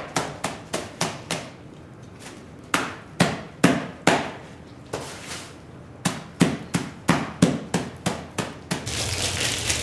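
A heavily soiled rug being beaten, sharp blows coming in quick runs of four to six with pauses between. About a second before the end, a steady rush of spraying water begins.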